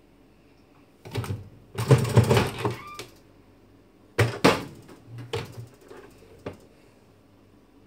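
Microwave oven door being unlatched, swung open and handled: a clatter of clicks and knocks, then two sharp clicks and a few lighter taps.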